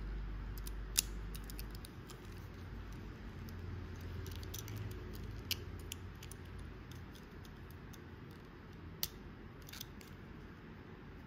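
Small sharp clicks and taps from a die-cast Tomica Diablo SV model car being turned over in the fingers, three of them louder, about a second, five and a half seconds and nine seconds in, over a low steady hum.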